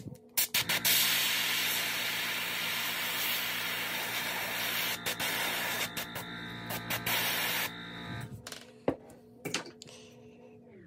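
Airbrush spraying paint: a steady hiss of air and paint that starts about a second in and stops a little before the eight-second mark, broken briefly twice. A few sharp clicks come just before the spraying and again near the end.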